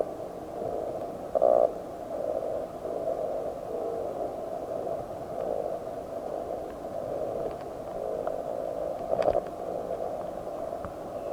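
Muffled churning water heard through a submerged camera, a continuous low gurgling rush with louder surges about a second and a half in and near nine seconds, and a few faint clicks.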